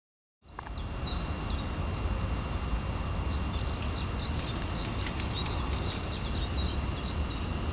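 Outdoor ambience: small birds chirping in quick, repeated short notes over a steady low rumble, starting suddenly about half a second in.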